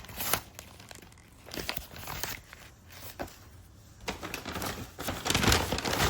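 Paper rustling and crinkling in short bursts as a workbook and a paper bag of school supplies are handled, loudest near the end.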